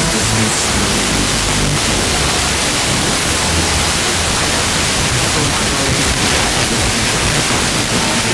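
FM radio receiver hissing with steady, loud static: the tuned channel holds no strong signal. Faint, broken traces of a distant station come through under the noise.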